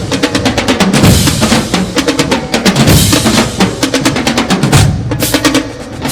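Drum-heavy music track: fast, dense drum hits and rolls over a deep bass drum beat that lands about every two seconds.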